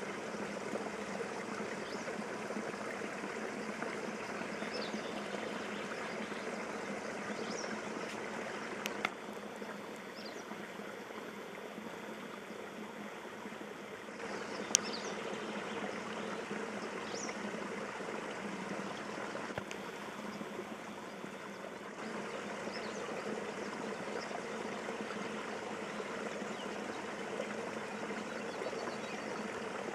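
Water running and trickling steadily, with faint short bird chirps now and then. There are two sharp clicks, about nine and fifteen seconds in.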